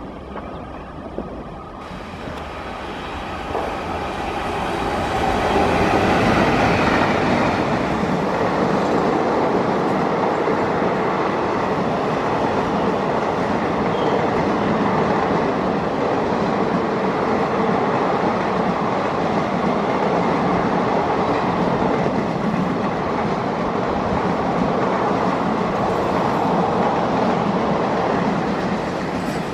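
Express train with an electric locomotive and a long rake of passenger coaches passing close by at speed. The noise swells over the first several seconds as the train arrives, then holds as a steady rush and clatter of coach wheels on the rails while the coaches go by.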